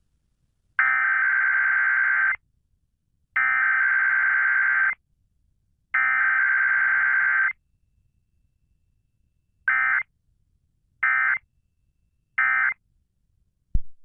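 Emergency Alert System SAME digital data bursts in a weekly test. First come three harsh, buzzy header bursts of about a second and a half each, a second or so apart. Then come three short end-of-message bursts, a little over a second apart.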